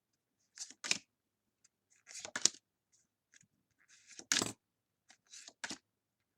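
A foil Pokémon booster pack and its cards being handled: about eight short crackling snaps with gaps between them, the loudest just past the middle.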